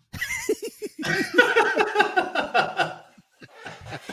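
Men laughing, a burst of rapid chuckles that fades, with a few more chuckles near the end.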